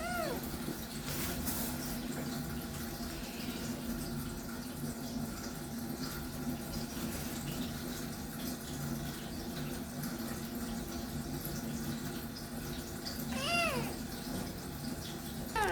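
Tap water running steadily while a kitten meows: one meow right at the start and two more near the end, each rising and falling in pitch.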